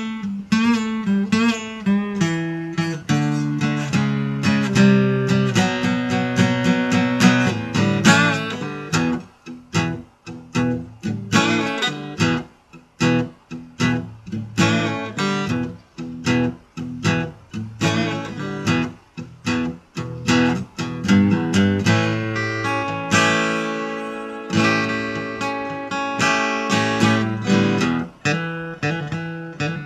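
Solo steel-string acoustic guitar playing a blues tune, with single notes and chords. From about 9 to 21 seconds in it plays short, clipped chords with brief gaps between them, then returns to fuller, steadier playing.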